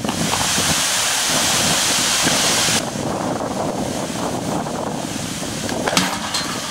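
Wind buffeting the microphone: a strong rushing gust for the first three seconds, then lighter. About six seconds in there is a single short, sharp knock.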